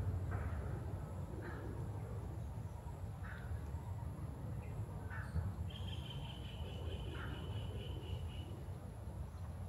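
Outdoor garden ambience: short bird calls every second or two over a steady high-pitched insect drone and a low rumble, with a thin held high note for about three seconds in the middle.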